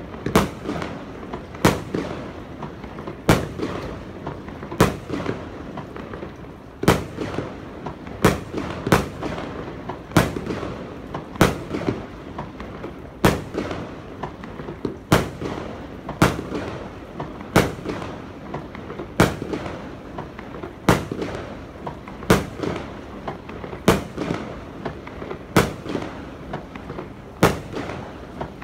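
Aerial fireworks shells bursting one after another, a sharp bang about every one to two seconds, each trailing off in a rolling echo.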